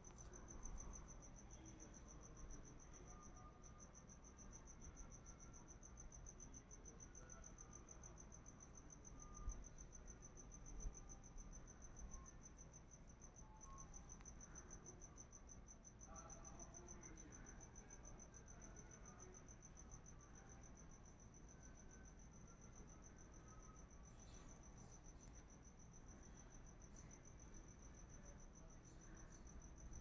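A cricket chirping in a continuous high, fast-pulsing trill, faint and steady throughout. Two soft low thumps come about ten seconds in.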